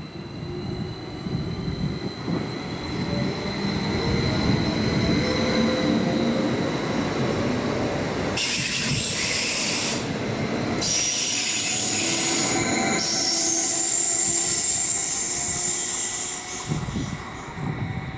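Stadler FLIRT electric multiple unit pulling into the platform: rolling rumble with a thin, gliding electric whine. From about eight seconds in, a high screech of brakes and wheels as it slows, easing off near the end.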